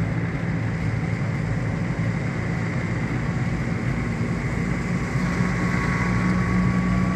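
Steady engine and road noise inside a moving car's cabin on a wet road, an even hum without change.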